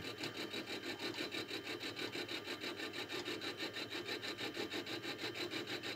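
End mill on a small milling machine taking a light cut across the port face of a cast-iron Stuart S50 steam-engine cylinder casting: a steady grinding cut with a rapid, even pulse as the cutter turns.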